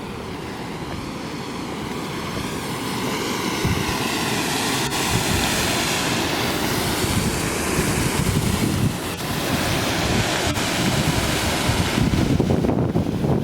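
Steady rush of falling water from the Chute de Madeleine waterfall, with wind buffeting the microphone.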